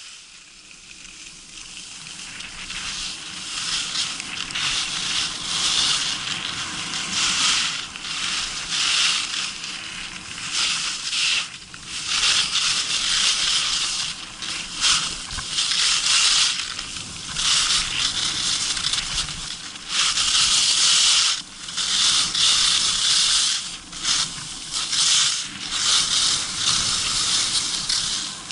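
Skis sliding and scraping over hard-packed snow through a run of turns, the scraping swelling and easing with each turn. It starts faint and builds over the first few seconds.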